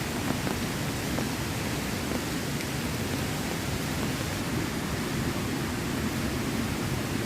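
Heavy rain falling steadily, an even, unbroken hiss with a few faint drip ticks.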